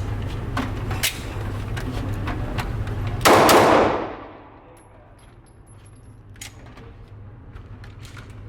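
A single loud handgun shot about three seconds in, with its report fading over most of a second, amid fainter sharp cracks and clicks and a steady low hum.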